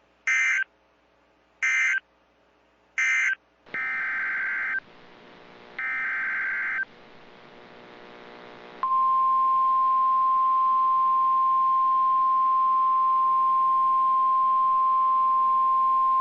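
NOAA Weather Radio / EAS SAME alert signals. Three short data bursts give the end-of-message code of the previous warning. Two longer header bursts open the next warning. About nine seconds in, the steady single-pitch warning alarm tone begins and holds.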